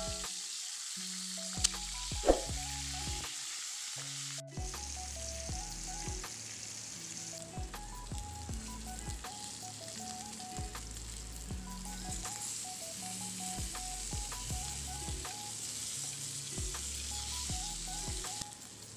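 Galunggong (round scad) sizzling as they shallow-fry in hot oil in a pan: a steady crackling hiss, with a couple of sharp clicks about two seconds in. Quiet background music plays underneath.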